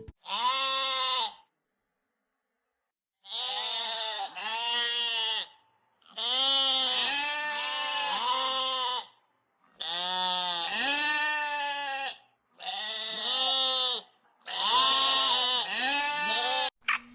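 Bleating farm animal calling over and over: long, wavering bleats, some in runs of two or three, with short pauses between.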